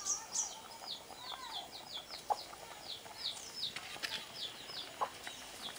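Birds chirping in a steady run of short, high, falling notes, several a second, with a few lower calls about a second in and a couple of light knocks.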